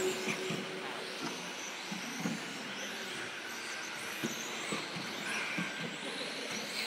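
Radio-controlled 2WD racing buggies running on an indoor track: their electric motors make faint wavering whines over a steady din, with scattered short knocks.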